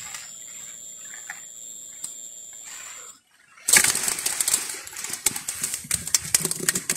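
A live fish flapping and slapping against the inside of a plastic bucket: a busy run of sharp taps and scrabbling starts about halfway in, after a brief drop-out. Before that there is only a faint steady hiss with a thin high whine.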